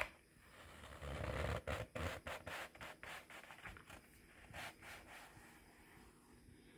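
A mesh running shoe being pulled off a foot by hand: the shoe scraping and rubbing against a sweat-soaked sock, loudest about a second in, with a string of short scratchy clicks through the middle.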